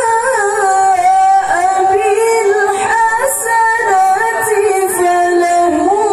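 A woman reciting the Quran in the melodic, sung style of qira'ah, her high voice holding long, ornamented notes that waver and glide between pitches.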